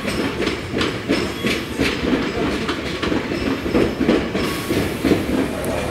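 Tobu 500 Series Revaty electric train rolling over the track and points, its wheels clacking in an uneven rhythm of about two to three clacks a second. The clacking stops about four and a half seconds in as the train moves off.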